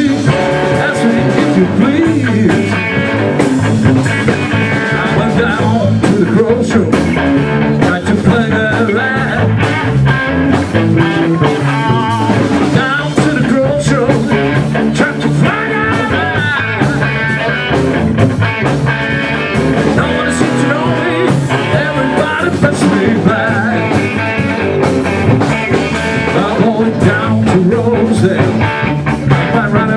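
Live rock band playing at full volume, with electric guitar, bass guitar and a drum kit.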